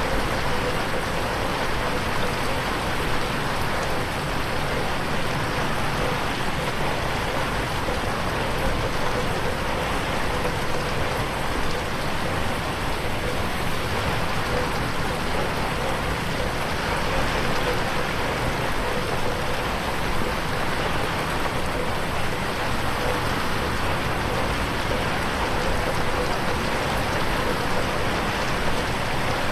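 Steady rain falling on a window pane, an even, unbroken hiss of drops, mixed as 8D audio.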